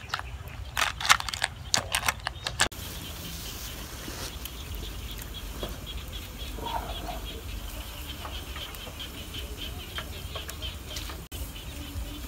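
Snail shells clattering against a metal pot as they are stirred with a stalk, a quick run of sharp knocks for the first two or three seconds. Then open-air ambience: an insect chirping in an even rhythm, about three or four chirps a second, over a low wind rumble.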